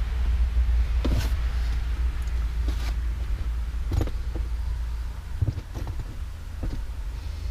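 Scattered clicks and knocks of hands and a tool on the bare plastic frame and trim of a stripped-down SUV center console, over a steady low rumble.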